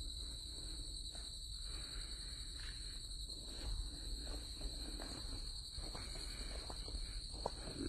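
Steady high-pitched insect chorus, two unbroken shrill tones, over a low rumble of wind or handling noise, with a few faint taps.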